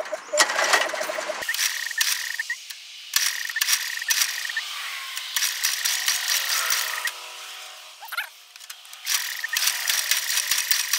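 6 hp Briggs & Stratton flathead engine being cranked over for a compression test, with a compression gauge in the spark plug hole: about four separate runs of fast mechanical clicking and rattling, each time the engine is turned over to build pressure on the gauge.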